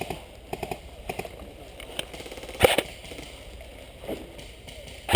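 Airsoft guns firing: scattered single pops and, about two and a half seconds in, a short rapid burst, the loudest sound.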